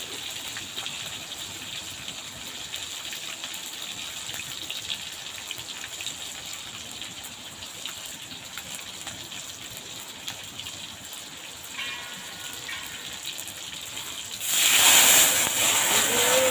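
Water boiling in a cooking pot, a steady bubbling hiss, which turns much louder and rushing near the end.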